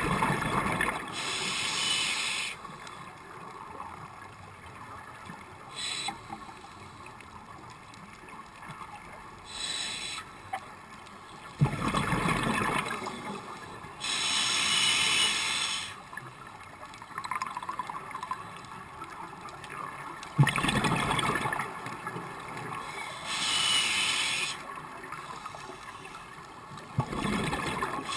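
Scuba diver breathing through a regulator underwater: a gurgling rush of exhaled bubbles, then a higher hiss of breath drawn through the regulator, repeating in slow breaths several seconds apart.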